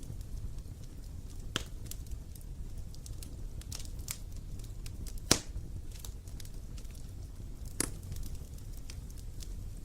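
Wood fire crackling and popping: scattered sharp snaps over a low, steady rumble of flames, with the loudest pop about halfway through.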